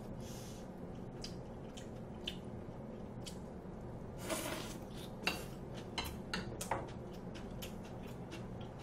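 A metal spoon and chopsticks clicking and scraping against a metal bowl, a scatter of light sharp clinks, the loudest a cluster between about five and seven seconds in.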